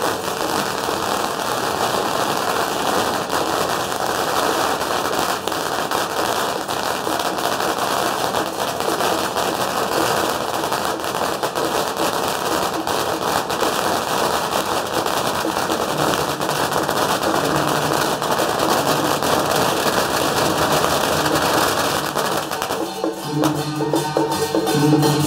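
A long string of firecrackers crackling continuously, with music faintly underneath. Near the end the crackling gives way to loud music with a steady beat.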